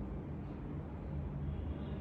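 Steady low background rumble with no distinct click or crack.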